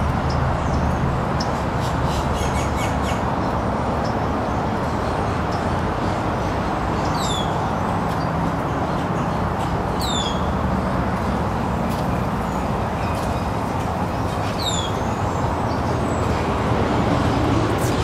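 A bird calling three times, a few seconds apart: a short, high whistle that sweeps downward each time. A steady, loud rushing noise runs under it.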